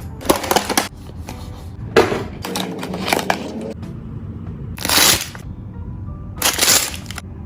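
Background music with sharp crackling and crinkling from toy packaging being handled and opened, including two longer rustling bursts about five and six and a half seconds in.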